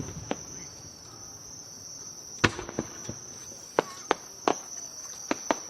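Aerial fireworks bursting: about ten sharp bangs at irregular intervals, the loudest about two and a half seconds in, several coming in quick succession. Under them, a steady high-pitched insect chorus.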